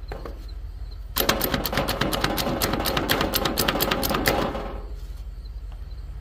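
Slap Chop plunger-style food chopper being pumped rapidly on onion on a plastic cutting board: a fast run of clacks, several a second, starting about a second in and lasting about three seconds.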